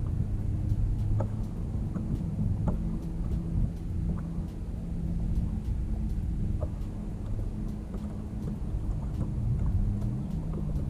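Wind buffeting the microphone: a steady heavy low rumble, with scattered light ticks.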